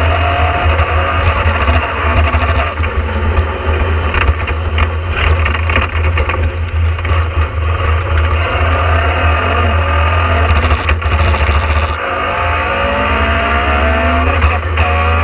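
In-cabin sound of a Talbot Sunbeam rally car with a Vauxhall 2.0-litre four-cylinder engine on a wet stage: engine running hard with heavy road and water-spray noise, rattles and knocks from the shell. About twelve seconds in, the engine note climbs steadily as the car accelerates in second gear.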